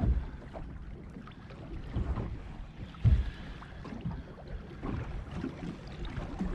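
Wind buffeting the microphone and water slapping against a small fishing boat's hull, with a few low thumps, the loudest about three seconds in.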